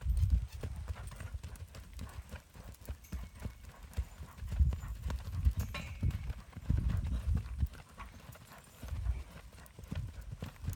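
Hoofbeats of a ridden horse moving around a soft sand arena: a steady run of dull thuds.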